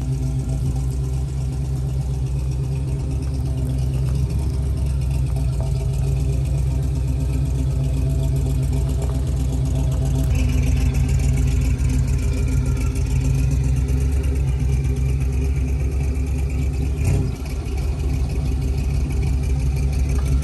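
Old pickup truck's engine running steadily with a low, even note. About ten seconds in a higher whine joins it, and the sound dips briefly near the seventeen-second mark.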